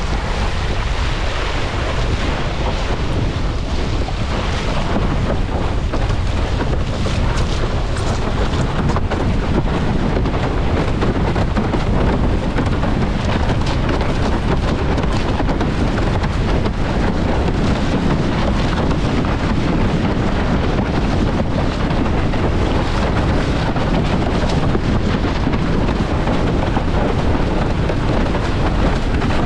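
Strong wind rumbling on a GoPro's microphone, with water rushing and hissing past a slalom windsurf board sailing at speed over choppy water. It holds steady throughout.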